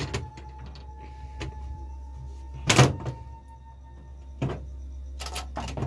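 Sliding glass doors of a metal cabinet being handled and shut, giving a string of separate knocks and clunks, the loudest about halfway through, over a steady low hum.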